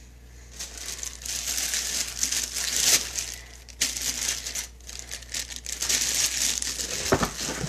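Clear plastic packaging crinkling and rustling in quick bursts as it is handled and wrapped around a small wax warmer. There are short pauses around the middle, and a light knock or two near the end.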